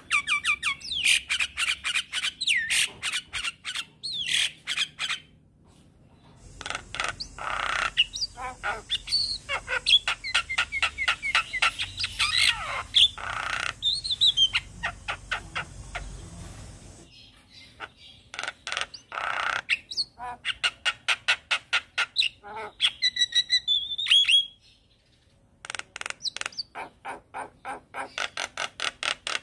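Javan myna singing in long bouts of rapid repeated notes mixed with short gliding whistles, broken by short pauses about five seconds in and again about twenty-four seconds in.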